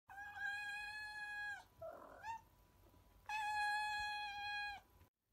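A cat meowing: two long, drawn-out meows of about a second and a half each, held at an even pitch, with a short rising mew between them.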